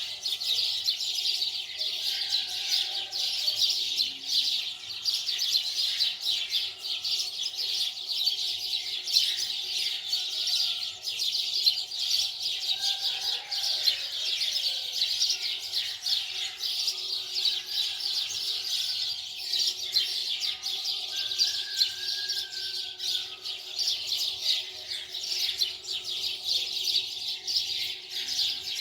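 Many small birds chirping continuously in a dense chorus of quick, high-pitched calls, with some softer warbled notes beneath.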